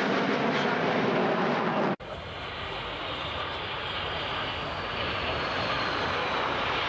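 A formation of Aermacchi MB-339 jet trainers passing overhead, their Rolls-Royce Viper turbojets giving a loud, dense rush of jet noise. About two seconds in the sound cuts abruptly to a quieter, more distant jet rumble with a faint whine slowly falling in pitch.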